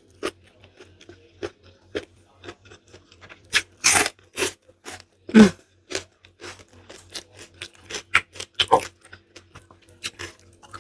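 Close-miked chewing and crunching of food in the mouth: a run of sharp, crunchy clicks, loudest about four seconds in and again a second and a half later.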